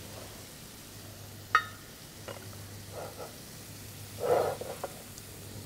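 Kitchen handling sounds as oil is brushed into a ceramic baking dish and pastry sheets are handled: one sharp, ringing clink of a utensil about one and a half seconds in, a few small knocks, and a louder soft rustle a little past four seconds, over a steady low hum.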